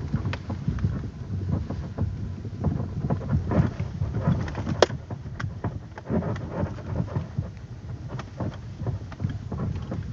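Lada Vesta driving slowly over an uneven road: a steady low road rumble with scattered knocks and clatters as it goes over bumps, the sharpest about five seconds in.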